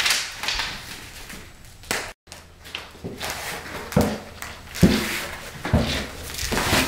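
Handling noises from laying self-adhesive foam edge strip along the base of a wall: a string of soft knocks, thumps and rustles as the strip is peeled and pressed into place. The sound cuts out briefly about two seconds in.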